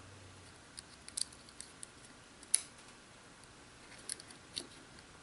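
Faint, scattered small clicks and taps of a 9-volt battery being fitted into a wireless hitch camera's plastic battery compartment, with the sharpest click about two and a half seconds in.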